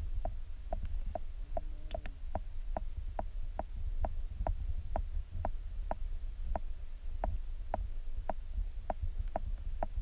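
Stream water heard from a submerged camera: a steady low rumble of flowing water, with short, evenly spaced clicks about two and a half times a second.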